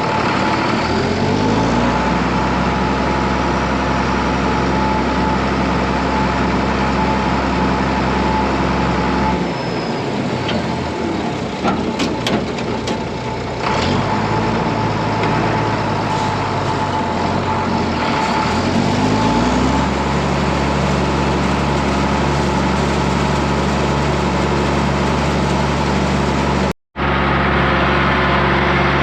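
Farm tractor engine running under load while pulling a hay rake, revving up near the start, easing off to a lower speed for several seconds around the middle, then revving back up. A few light clicks sound while it runs slower, and the sound cuts off abruptly for a moment near the end.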